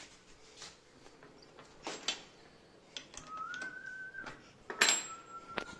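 Sharp metal clicks and knocks of small parts being handled at a bench drill's chuck, the loudest about five seconds in. Between them someone whistles two long, nearly steady notes, each about a second long.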